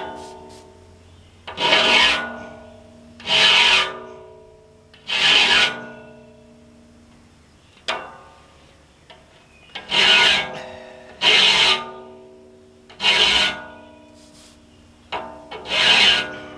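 Hand file rasping across the steel teeth of a large circular saw blade: seven strokes, three then a pause then four. The steel saw plate rings after each stroke, and there are a couple of sharp clinks as the file is set against a tooth.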